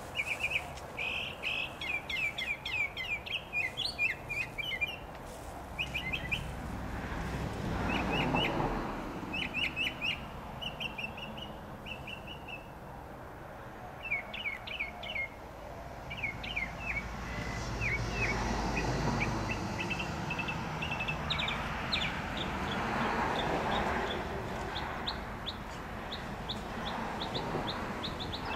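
Northern mockingbird singing: quick groups of short, high notes, each phrase repeated several times before it switches to another, with brief pauses between. A low rumble swells in the background about a third of the way in and again through the second half.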